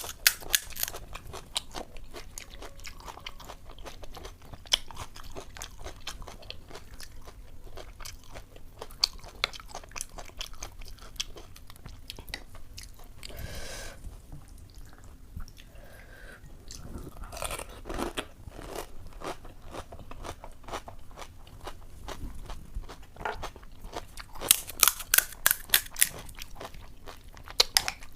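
Close-up crunching and chewing of crisp puchka (panipuri) shells filled with ghugni, with many sharp crackles and a dense run of crunching near the start and again near the end.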